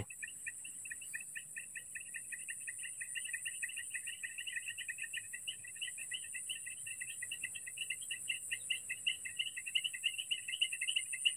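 Insects calling: a rapid, evenly pulsed chirping, about five pulses a second, growing slowly louder, over a continuous high-pitched insect hiss.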